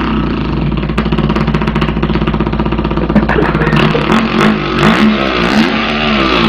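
A man imitating a dirt bike engine with his mouth: a buzzy engine drone, held steady at first, then swooping up and down in pitch like revving through the gears.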